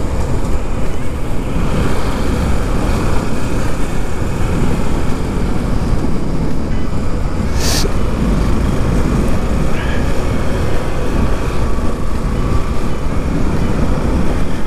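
Motorcycle riding noise at road speed: the Bajaj Pulsar NS200's single-cylinder engine running under steady wind rush on the microphone. A brief hiss about eight seconds in.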